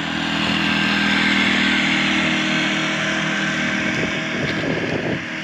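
Small motorcycle engine running steadily as it passes close by and moves away, its note fading over the last couple of seconds.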